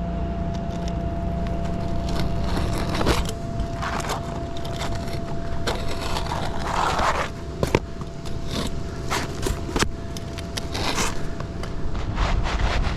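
Roofing work on shingles: scraping and irregular sharp clicks and knocks, over a steady low rumble and a faint steady high tone.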